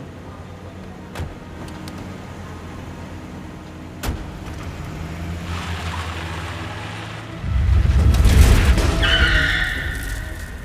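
A car engine running low, a sharp knock about four seconds in, then a loud, deep rumble swelling from about seven seconds in, with a high screech on top near the end: the film's sound of an earthquake striking.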